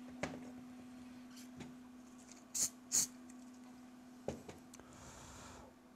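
Small handling noises of plastic model parts being pressed and glued by hand: a click just after the start, two short rustles in quick succession near the middle, and a tap a little later, over a steady low hum.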